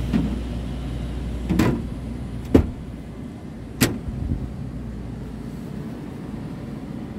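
A few sharp knocks and thumps inside a truck cab over a low steady rumble; the rumble cuts out at the loudest knock, about two and a half seconds in.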